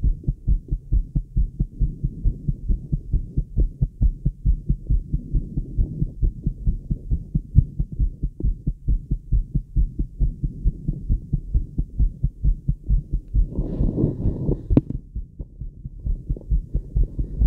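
Fast heartbeat heard through a Littmann stethoscope on the chest: a quick, regular run of low thumps. About fourteen seconds in, a brief louder rushing noise rises over the beats for a second or so.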